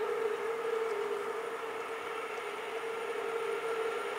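Horn of a PKP ET22 electric freight locomotive sounding one long, steady blast: the Rp1 'attention' warning given by an approaching train. The tone fades a little midway, then holds again.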